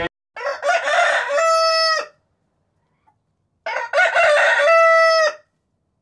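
A rooster crowing twice, each cock-a-doodle-doo lasting nearly two seconds and ending on a long held note, with a silent gap of about a second and a half between them.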